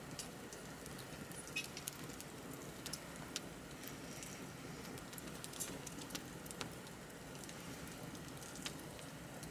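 Wood campfire burning steadily with a soft hiss and irregular sharp crackles and pops, several a second at times.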